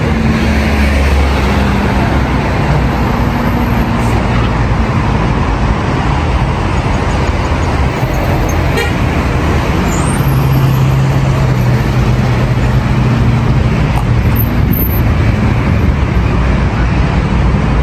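Steady city road traffic: cars driving past on a multi-lane street, with the low hum of their engines rising and fading as they go by.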